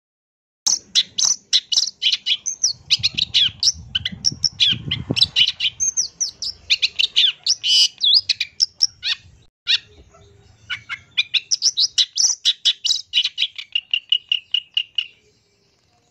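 Long-tailed shrike (pentet) singing a fast, varied run of short chirps and chatters. It starts suddenly, pauses briefly about two-thirds of the way through, and ends in a quick series of identical repeated notes.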